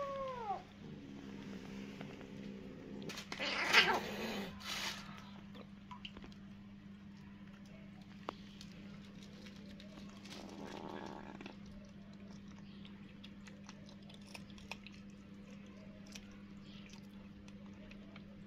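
Stray kitten meowing, a call falling in pitch, then a lower drawn-out cry; a loud noisy burst comes about four seconds in. After that there is soft crunching, small clicks and plastic rustling as a kitten eats scraps from a plastic bag.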